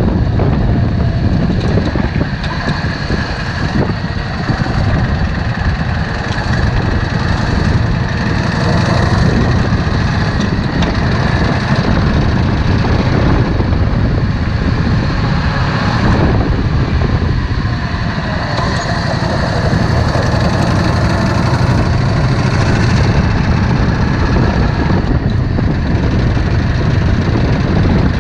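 Yamaha Drag Star 650's V-twin engine running steadily and loud, without a break.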